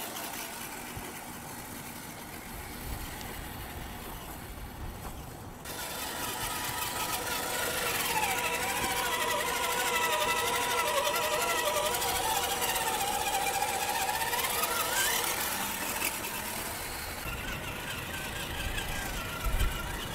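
Reely Freemen 1:10 electric RC crawler driving through mud, its electric motor and gears whining, the pitch dipping and rising with the throttle for several seconds.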